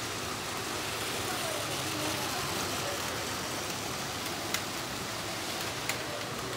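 Steady running noise of battery-powered Plarail toy trains on plastic track, over faint voices. Two short sharp clicks in the second half.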